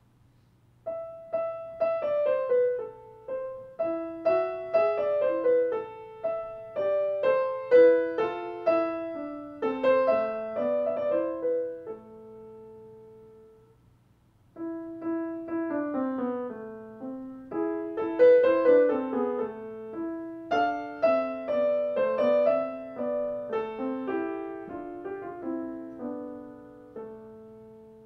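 Grand piano playing a slow, singing legato melody with accompaniment in two phrases. There is a short pause about halfway, and each phrase ends on a held note left to ring out.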